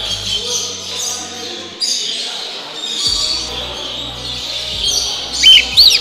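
Caged parrots in a large show hall chirping and chattering over one another, with two loud arching whistled calls near the end. Quiet background music runs underneath.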